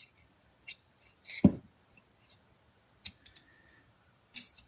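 Small metal clicks and scrapes of a dental pick working at the spring inside a pair of old locking pliers, with one louder knock about a second and a half in.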